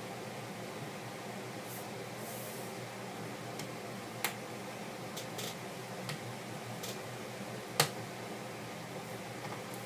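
Light, sharp clicks and taps of small tools and plastic phone parts being handled, about six of them scattered over a steady background hum. The loudest click comes near the end.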